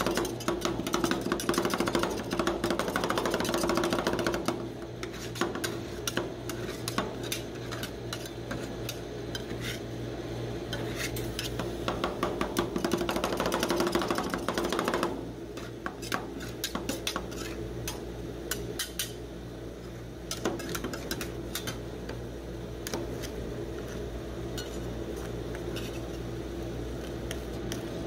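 Steel spatulas chopping and tapping popcorn into ice cream base on a frozen steel cold plate: rapid clatter at the start and again from about ten to fifteen seconds in, with quieter scraping and scattered taps in between and later as the mix is spread thin. A steady low hum runs underneath.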